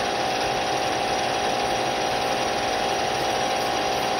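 EMCO lathe running steadily, its spindle drive giving a constant whine, while a boring bar takes a light finishing pass of about five thousandths inside a spinning plastic workpiece.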